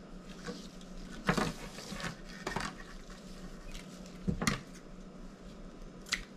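Gloved hands handling satin ribbon and ribbon spools, making a few short rustling scrapes, then one sharp snip of scissors cutting the ribbon near the end. A steady low hum runs underneath.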